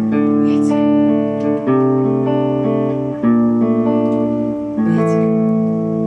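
Instrumental passage of a live rock-opera song: guitar chords ringing and changing about every one and a half seconds, with a fresh strum about a second in and again near the end.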